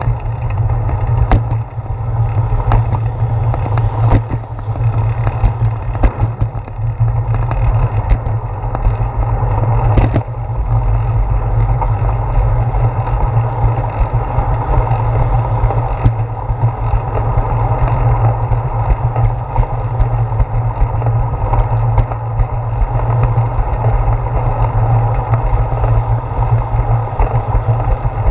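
Bicycle riding over concrete, heard through a handlebar-mounted camera: steady wind rumble and tyre noise, with the bike and mount rattling. Several sharp knocks come in the first ten seconds as the wheels hit joints and bumps in the pavement, and fewer after that on the smoother path.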